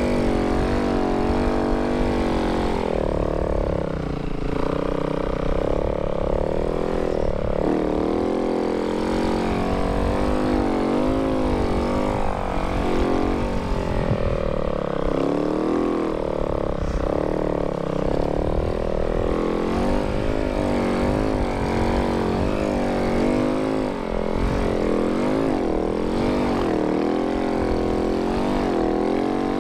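Snow bike's dirt-bike engine under load while riding, its revs rising and falling continually over the rumble of the track and wind.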